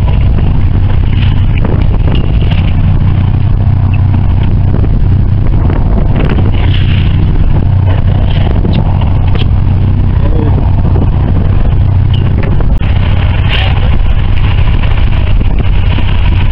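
Fishing boat's engine running steadily, a constant low hum under a haze of wind and sea noise, with a few short clicks.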